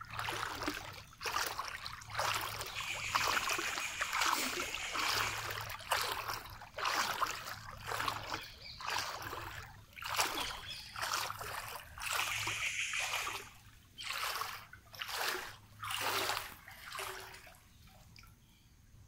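Floodwater splashing and sloshing in repeated surges, about one a second, as someone moves through it; the splashing dies down near the end.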